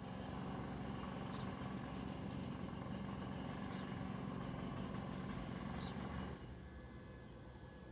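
A steady mechanical hum, like a motor or engine running, that cuts off suddenly about six seconds in. A few short, faint bird chirps come through, about one every two seconds.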